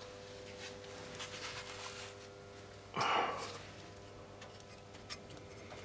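A short breath or sigh from a person about three seconds in, over a faint steady hum and a few small clicks.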